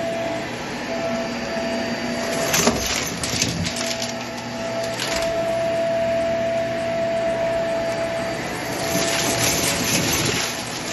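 Shark vacuum cleaner running with a steady motor whine as it sucks up Dippin' Dots from carpet. A few sharp crunches come in the first half, and there is a stretch of dense crackling near the end.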